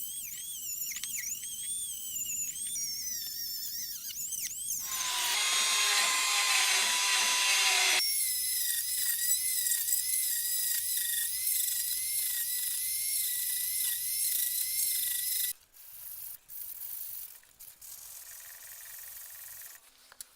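A power tool working on metal parts, running with a high-pitched squealing whine whose pitch wavers with the load. It changes tone twice and stops about fifteen seconds in, followed by fainter intermittent scraping.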